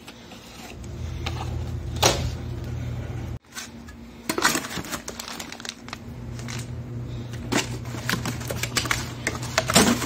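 Scattered clicks and rustles of packaging being handled: a plastic bag of fittings and a cardboard box holding a new refrigerator compressor. A steady low hum runs underneath and drops out for a couple of seconds about a third of the way in.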